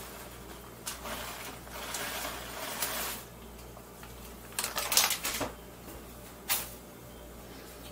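Plastic bag of shredded cheese rustling as cheese is shaken out of it into a bowl, then a short run of sharp clicks and knocks about five seconds in, and one more knock a second later.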